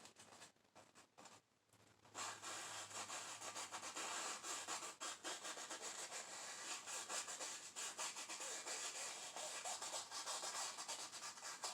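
Oil paint being scrubbed onto a canvas in quick, short strokes, a dry scratchy rubbing that starts about two seconds in and keeps going almost to the end. The strokes lay in white water and splashes on a waterfall.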